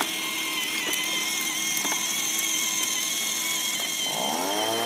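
Small electric drive motor and gearbox of a battery-powered ride-on toy motorcycle whining steadily as it drives along. About four seconds in, a rising electronic tone sweeps up and then holds.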